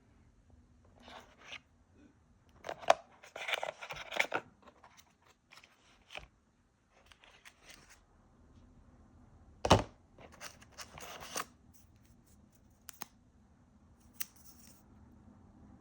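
GoPro Hero 13 Black box and packaging being opened and handled: irregular stretches of rustling and scraping broken by several sharp clicks, the loudest about ten seconds in.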